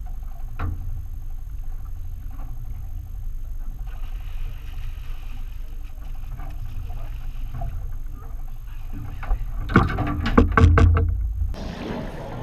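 Boat motor running steadily with a low rumble. About ten seconds in, a quick cluster of several loud knocks and thumps rises over the motor for about two seconds.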